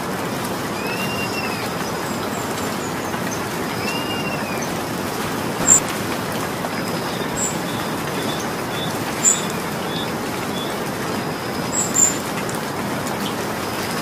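Steady rain falling. A bird gives rising-and-falling whistles twice in the first few seconds, and several short sharp high chirps stand out above the rain later on.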